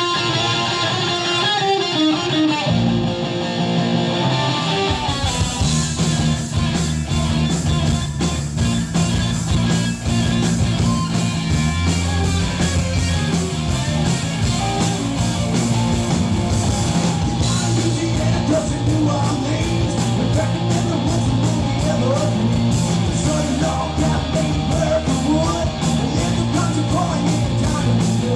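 Rock band playing: a guitar opens alone, then drums and bass come in about five seconds in and the full band plays on with a steady beat.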